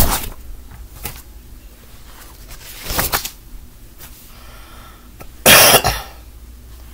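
A man coughing close to the microphone, once about three seconds in and again, louder, about five and a half seconds in.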